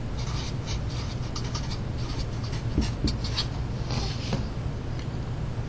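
Felt-tip marker scratching across paper in a run of short strokes as a word is written, stopping about four and a half seconds in. A steady low hum runs underneath.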